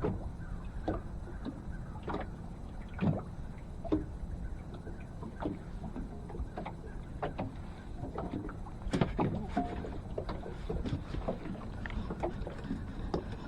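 Water slapping against a boat hull in strong wind, with steady wind rumble and scattered light knocks and clicks.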